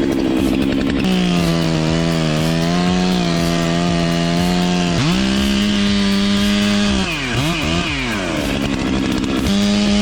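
Two-stroke chainsaw running at high revs with a steady high pitch. The pitch drops sharply about halfway through, then falls and climbs back twice as the throttle is let off and opened again, returning to full revs near the end.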